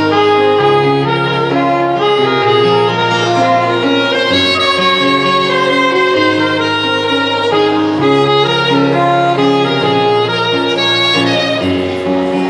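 Instrumental music, with a bowed melody line over a moving bass and a full accompaniment.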